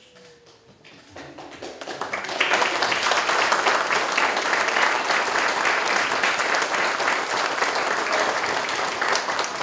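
A congregation applauding. The clapping builds up over the first two seconds, then holds steady and full.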